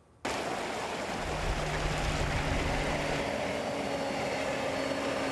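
Heavy earth-moving machinery running, a steady diesel-engine rumble with faint steady engine hums, cutting in abruptly just after the start.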